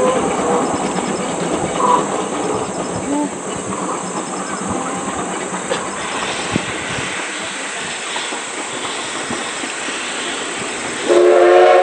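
Oigawa Railway steam locomotive hauling its train along the line, a steady running noise. Near the end a louder sound with several tones together sets in.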